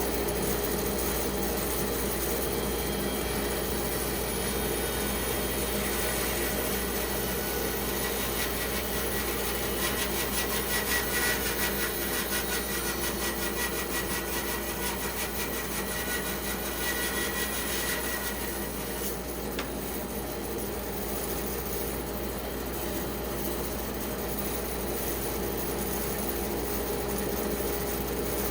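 Band saw running steadily while cutting through a pecan log, the rasp of the cut strongest through the middle of the stretch.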